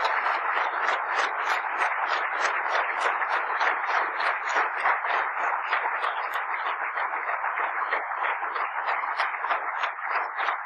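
Audience applauding: many hands clapping in a dense, steady patter that eases slightly near the end.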